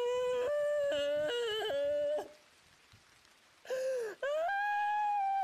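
A singer's wordless vocalise in a slow ballad: long held notes that step up and down between pitches, a pause with a breath, then one long note that swells and holds.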